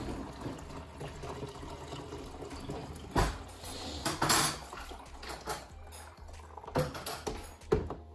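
Kitchen sink sounds: water running and pouring, with a few sharp knocks and clinks of dishes being handled.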